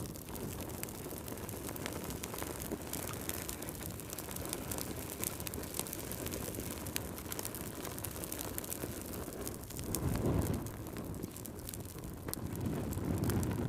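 Fire burning in a fireplace, crackling: many sharp pops and snaps over a steady low rush of flame, which swells louder about ten seconds in and again near the end.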